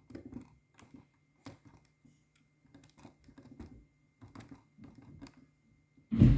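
Small plastic clicks and handling noise from working the volume switch on a JVC GR-D290U camcorder, which does nothing outside playback mode. A louder low thump comes near the end.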